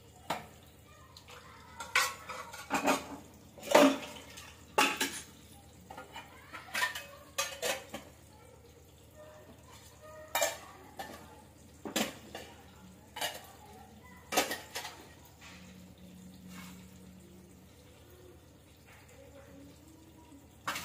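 Stainless-steel kitchenware clanking as it is handled: a ladle knocking against steel bowls, and pots, bowls and tiffin containers set down on the counter. The sharp clanks come irregularly, thickest in the first few seconds and more spaced out later.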